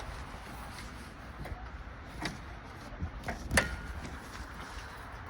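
A few light knocks and clicks, the loudest about three and a half seconds in, over a low steady rumble.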